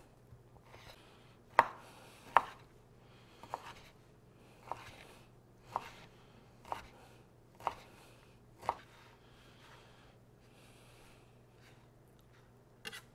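Chef's knife dicing cooked fajita steak on a wooden cutting board: sharp knocks of the blade striking the board, about one a second, stopping about two-thirds of the way through.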